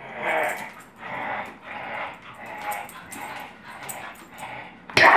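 A dog at play making repeated short, noisy vocal sounds, about one a second, with a few light clicks between them. A sudden much louder, dense burst of sound begins just before the end.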